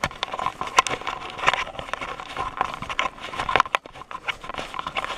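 Handling noise from a handheld camera being moved and repositioned: irregular clicks, knocks and rustles, over a faint steady tone.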